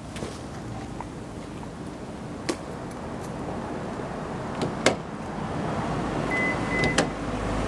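A rushing rumble of jet aircraft noise that grows louder through the second half. A few sharp clicks and jingles from car keys, and a short electronic beep about six seconds in.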